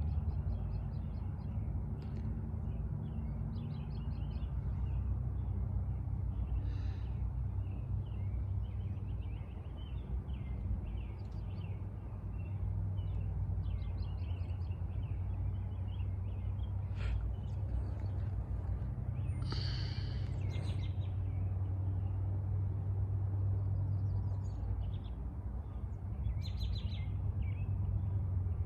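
Several songbirds chirping and singing in short, scattered calls, with one louder, fuller call about twenty seconds in, over a steady low rumble.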